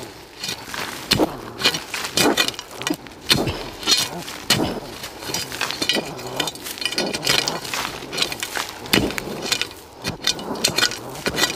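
A metal blade chopping and scraping into packed soil to dig open a rodent burrow, in repeated irregular strikes, roughly one or two a second.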